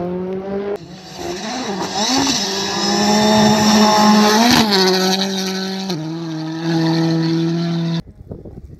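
Rally car engine revving hard at full throttle on a gravel stage, its pitch climbing and dropping with gear changes, with a sharp crack about four and a half seconds in. Near the end the engine drops away abruptly to a much quieter noise.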